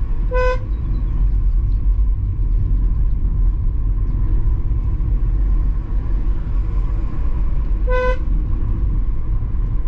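Car driving on a mountain road: a steady rumble of engine and road noise, with two short car-horn toots, one just after the start and one about eight seconds in.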